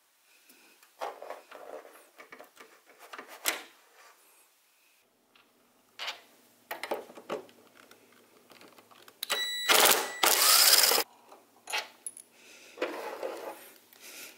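Handling noises from a large flat-screen TV being laid down and worked on: scattered clicks, knocks and rustling, with a louder burst of rustling and clatter about ten seconds in.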